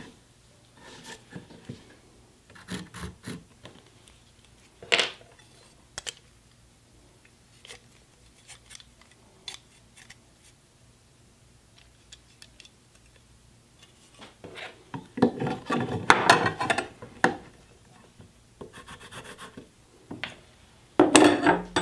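Hands working a combination square on a pine 2x4: the steel rule sliding and clicking in the square's head, with scattered small knocks. Louder scratchy rubbing comes about two-thirds of the way through and again near the end, when a pencil is drawn along the rule to mark the wood.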